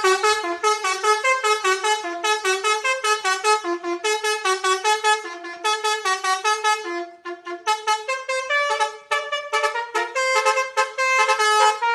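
Basuri telolet horn playing a fast melody of short, stepped horn notes, with a brief break about seven seconds in.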